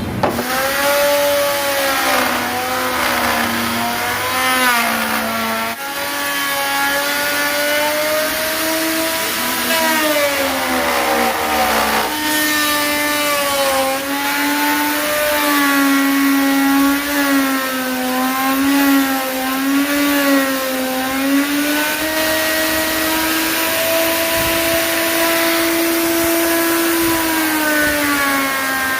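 Electric woodworking power tool running continuously, its motor pitch sagging and recovering as it is worked into the wood, over a steady hiss of cutting.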